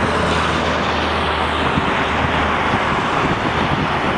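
Steady rushing noise of road traffic and wind, with a low hum that breaks up about two seconds in.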